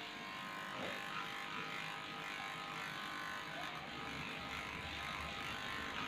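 Cordless electric dog clipper running steadily with a machine hum as it shaves matted coat off a Shih Tzu's hind leg.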